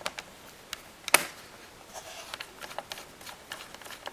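Screwdriver driving a small screw into a laptop's plastic case: a sharp click about a second in, then a run of small, irregular ticks and light scrapes as the screw is turned.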